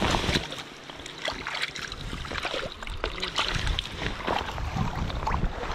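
Irregular splashing and sloshing of feet in waders wading through shallow river water.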